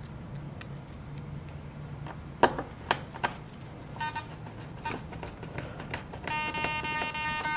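A few light clicks of a small screwdriver working the servo's mounting screws, then a brief buzzing tone a little past halfway, and a steady high electronic buzz starting near the end.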